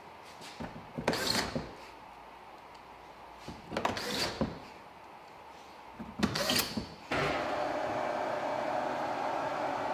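A cordless screwdriver runs in three short bursts, driving in the screws of a car's plastic underbody cover. About seven seconds in, a two-post car lift starts running steadily as it lowers the car.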